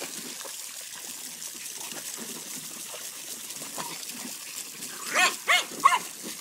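Water splashing in a plastic kiddie pool as a Boxer puppy paws through a stream of water running into it. About five seconds in, a dog barks three times in quick succession.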